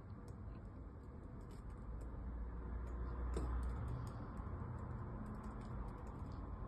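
Typing on a laptop keyboard: quick, irregular key clicks over a low steady room hum.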